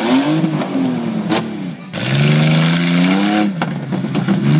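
SUV engine revving hard on a dirt obstacle course, its pitch rising and falling in repeated surges as the throttle is worked, with a sharp knock about a third of the way in.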